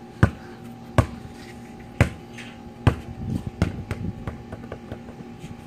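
A basketball being dribbled between and behind the legs, bouncing sharply about once a second four times, then a run of softer, quicker knocks as the ball is handled.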